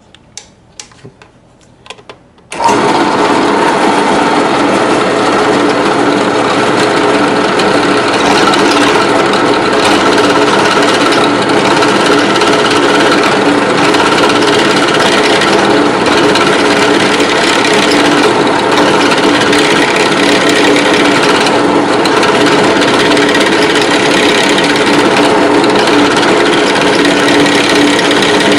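A few light clicks, then a drill press starts abruptly about two and a half seconds in and runs steadily as a 1/4-inch bit lubricated with petroleum jelly is fed down into a tobacco pipe's stummel.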